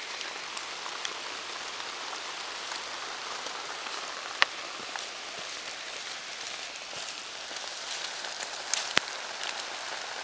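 Steady rain falling in the woods, with a few sharp drop strikes close by, the strongest about four and a half seconds in and another near the end.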